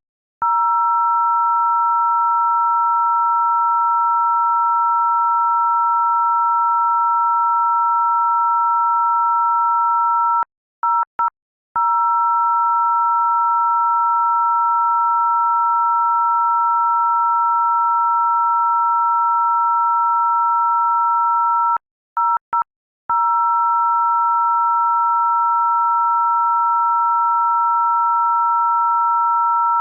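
A loud, steady electronic tone of two pitches sounding together. It stutters with a few quick cut-outs right at the start, again about eleven seconds in, and once more about twenty-two seconds in.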